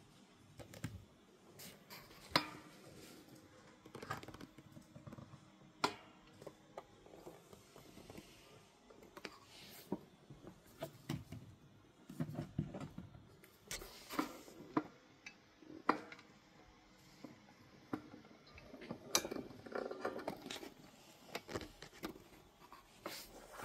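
Scattered light taps, clicks and short scrapes from plastic figures and their bases being handled and set down on a tabletop, with a few sharper clicks standing out.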